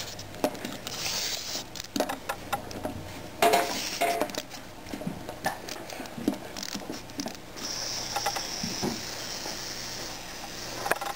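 Irregular light clicks and taps from a plastic Slinky Dog toy being pushed and pulled across a wooden desk: its plastic feet tap the desktop and the coil spring rattles. A soft hiss joins in for the last few seconds.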